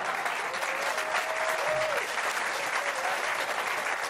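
Large theatre audience applauding, steady dense clapping.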